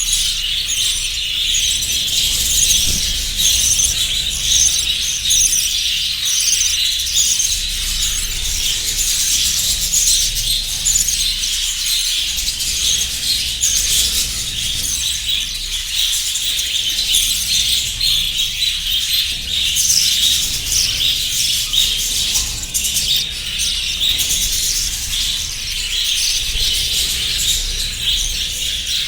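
Many small cage birds chirping and chattering without pause, short high calls overlapping one another.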